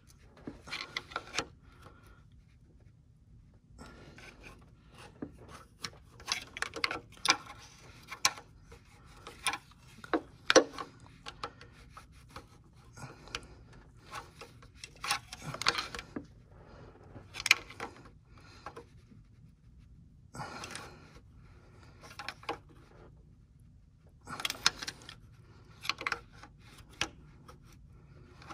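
Hand work on a car's coolant hose and its clamp: irregular rubbing, scraping and clicking, in short spells with quiet gaps between.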